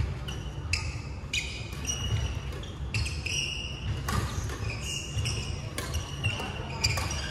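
Badminton play on an indoor wooden court: sharp racket strikes on the shuttlecock every second or so, short high squeaks of sports shoes on the floor, and a steady low rumble underneath.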